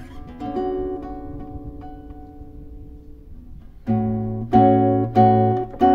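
Acoustic guitar music: a few picked notes left to ring, then, about four seconds in, four strummed chords in quick succession, the loudest part.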